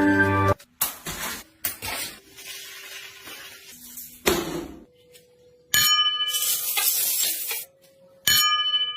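Ringing clanging strikes, like struck metal, between scattered knocks and clatter. Two louder ringing tones start about five and a half and eight seconds in; the first holds for about two seconds.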